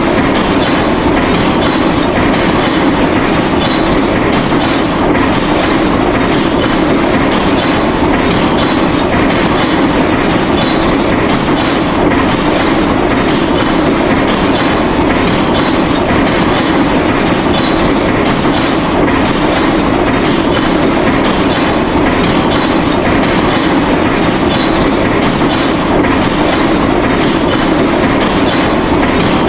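Small electric pressure-washer pump running steadily, with its water jet spraying.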